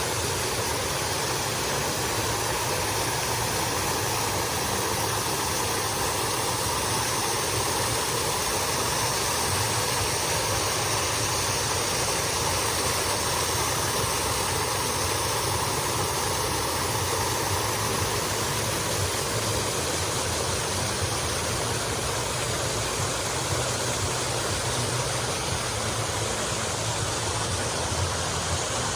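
Artificial waterfall pouring into a swimming pool, a steady, unbroken rush of falling water.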